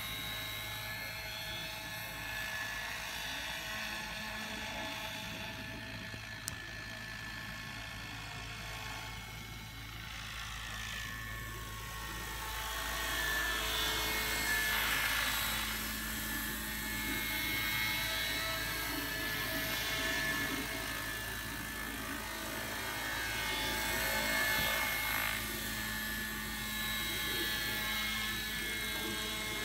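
Vario scale model Schweizer 300C radio-controlled helicopter in flight: a steady mechanical whine of its rotors and drive, made of several tones. It swells louder and its pitch glides as the model passes closer, about halfway through and again near the end.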